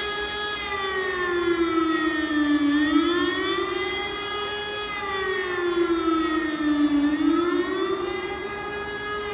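A siren wailing, its pitch slowly rising and falling in a cycle of about four seconds.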